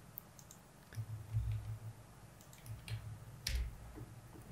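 Faint clicks from a computer keyboard and mouse, with a few dull low thumps, the loudest about three and a half seconds in.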